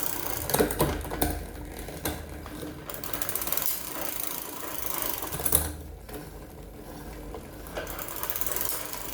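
Bicycle drivetrain turning as the pedals are cranked by hand: the chain running over the sprockets with a fast, even ticking, and a few louder clicks as the gears are shifted up toward the highest gear.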